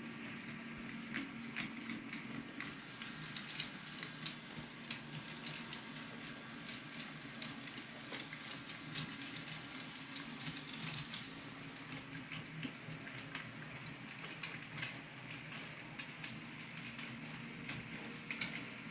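HO scale model trains running on the layout's track: a steady low motor hum with many irregular small clicks as the wheels pass over the rail joints.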